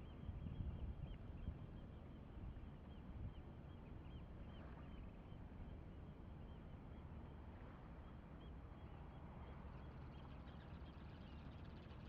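Faint low rumble with louder gusts in the first couple of seconds, and birds chirping over it throughout.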